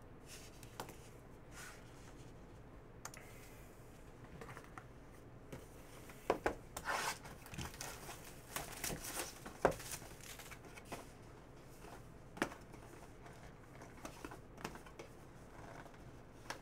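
Plastic shrink-wrap on a cardboard box of trading cards crinkling and tearing as the box is handled and unwrapped, with scattered crackles and a few sharp taps, busiest through the middle.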